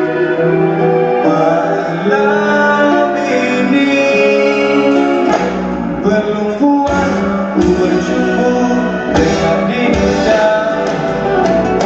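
Live acoustic music: a strummed acoustic guitar with sung vocal notes held over it, and the chords changing every second or two.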